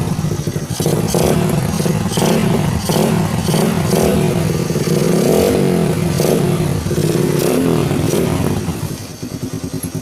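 Motorcycle fitted with a Spyker aftermarket exhaust being revved in repeated throttle blips for a sound check, dropping back to idle near the end.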